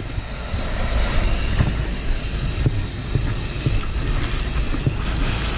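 Steady low rumble of a fire engine running at the scene, with a faint high whine that cuts off near the end and a few light clicks.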